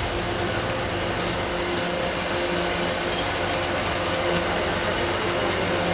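MBTA commuter rail train passing at speed: the steady noise of its wheels on the rails, with a steady hum beneath it.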